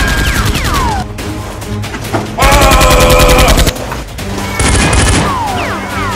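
Automatic gunfire sound effects over background music: a rapid burst at the start, a louder burst of about a second in the middle, and two short bursts near the end.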